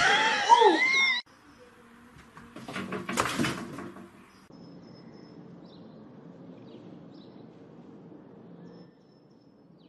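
A cat's long meow, its pitch wavering up and down, followed a second or so later by a brief clatter of knocks and scrabbling.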